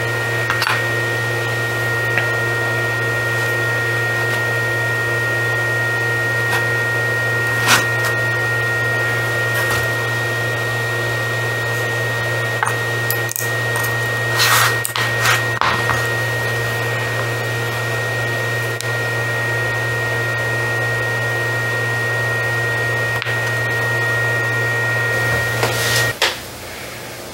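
Hot-air rework station blowing steadily, a low fan hum under a thin high whine, while solder balls are reflowed on a BGA memory chip held in a reballing stencil. A few light clicks from tweezers, and the air noise cuts off suddenly near the end.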